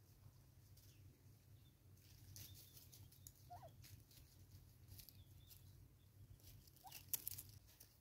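Near silence over a low steady hum, with faint scattered ticks and rustles and two short, faint bird notes, one about three and a half seconds in and one about seven seconds in.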